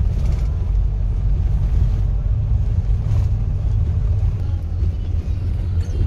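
Steady low rumble of a moving road vehicle, engine and tyre noise, with a couple of faint brief knocks.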